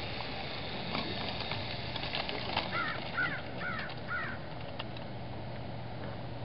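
A crow caws four times in quick succession, over a steady low hum.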